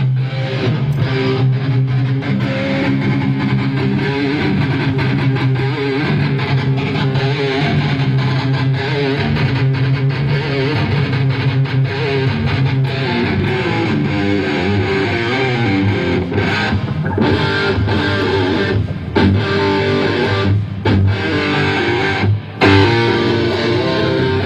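Electric guitar playing a heavy rock riff, with short breaks in the playing a few times in the second half.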